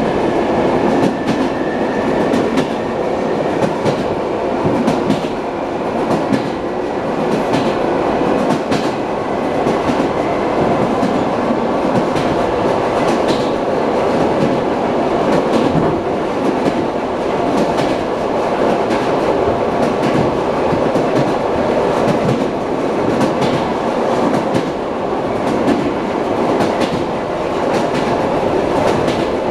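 Wheel clatter inside an ED9M electric multiple unit carriage as the train runs: a steady rail rumble with irregular sharp clicks of the wheels over rail joints.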